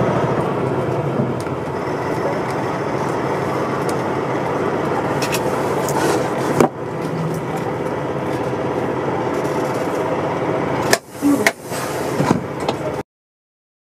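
Semi-truck's diesel engine running steadily, heard from inside the cab as the truck rolls slowly. There is a sharp click about halfway through and a few knocks near the end, then the sound cuts off suddenly.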